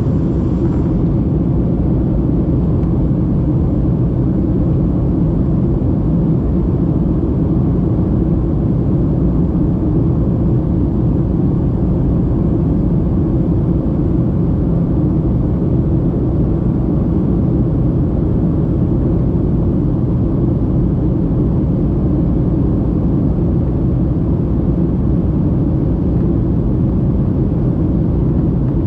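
Steady low rumble of a jet airliner heard from inside the passenger cabin: engine and airflow noise holding an even level throughout.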